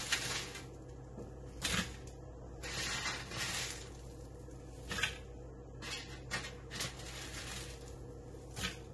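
Oven-dried bread cubes crushed and crumbled by hand over a metal baking sheet: irregular dry crackling and rustling, with bits of crust and crumbs tapping onto the tray.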